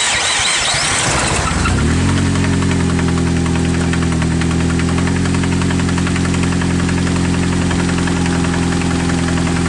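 Car engine starting up and settling into a steady idle about two seconds in, with a rapid knocking running through it. The owner diagnoses this as rod knock from a worn connecting rod bearing, an engine in bad shape.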